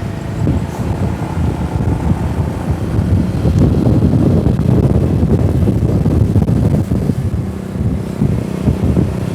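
Vehicle engine and road rumble with wind buffeting the microphone, growing louder about three seconds in.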